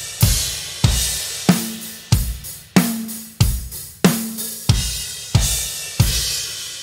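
Rock drum beat with the 24-inch Paiste 2002 Big Beat ride cymbal struck hard with the edge of the stick, giving a loud washy ring on every beat over the kick drum and snare, about one and a half strokes a second. The last stroke rings out and fades near the end.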